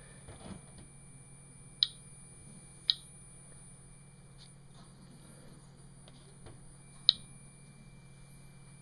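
Kvarts DRSB-01 radiation dosimeter giving short, sharp high beeps as it registers counts of ionizing radiation from a rain-swipe sample: three loud beeps, the first two about a second apart and the third some four seconds later, with two fainter ones between. A steady low hum runs underneath.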